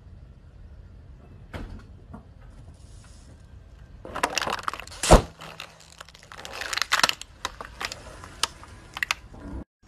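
Plastic water bottle crackling and crinkling as a car tyre rolls over and crushes it, with one loud sharp pop about five seconds in as the bottle gives way, then scattered crackles as it flattens.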